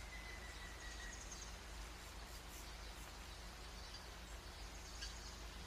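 Faint outdoor garden ambience with distant birds chirping now and then. A thin, steady whistle-like tone fades out about a second in.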